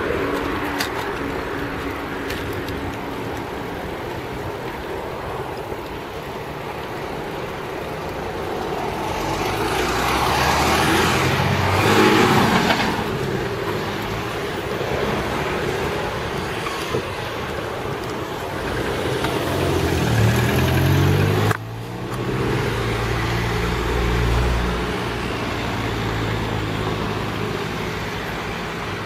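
Street traffic: a steady hum of cars with vehicles passing close by. One pass swells loudest about twelve seconds in. Around twenty seconds in an engine is heard accelerating, rising in pitch, before the sound drops off suddenly.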